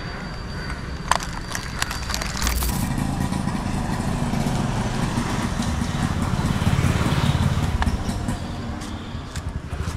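A motor vehicle passing: a low engine rumble that swells to its loudest about seven seconds in, then fades near the end. A few sharp clicks and rustles come in the first seconds.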